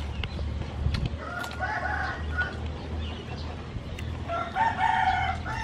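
A rooster crowing twice, once about a second in and again near the end, over a steady low hum.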